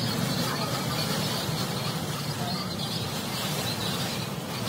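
Steady rushing noise of a vehicle driving through heavy cyclone rain and wind: tyres on the flooded road, wind and rain.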